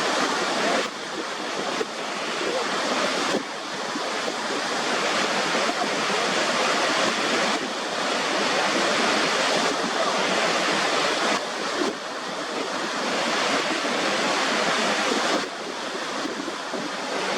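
Rushing water of a waterfall: a steady, loud hiss of falling water, stepping abruptly up or down in level every few seconds as the recording changes.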